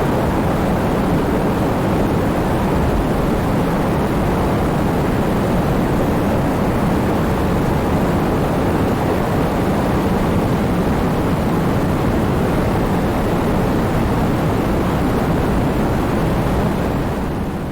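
Heavy rain falling in a steady, dense downpour, starting to fade out near the end.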